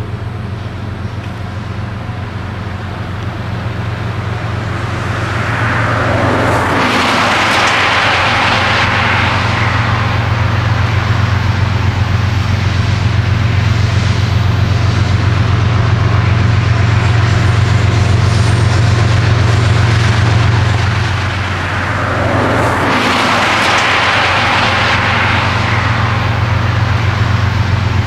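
Diesel locomotives of a CSX freight train running with a steady low engine drone that grows louder as they approach. Two rushes of brushing noise, about six seconds in and again near the end, are branches of a storm-downed tree scraping along the locomotives.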